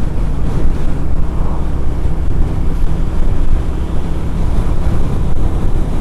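Steady wind buffeting and road rush picked up by a lavalier mic inside a motorcycle helmet at riding speed, with the motorcycle's engine running underneath as a low, even hum.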